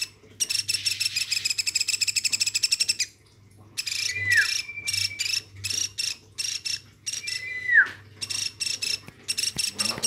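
Fledgling woodpecker calling nonstop: a fast run of high chirps, about ten a second, breaks off briefly, then comes back as slower repeated chirps, twice with a downward-sliding note.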